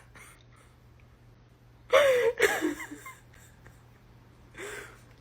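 A short, breathy huff whose pitch falls, about two seconds in, and a fainter breath near the end. Otherwise quiet.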